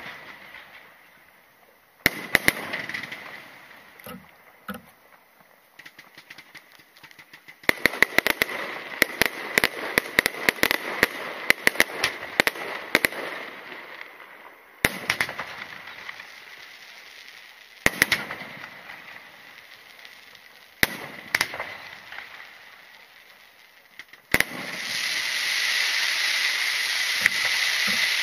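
Aerial firework shells bursting with single sharp bangs, with a rapid run of crackling reports lasting several seconds in the middle. Near the end a steady loud hiss starts as a ground-level firework shoots up coloured stars.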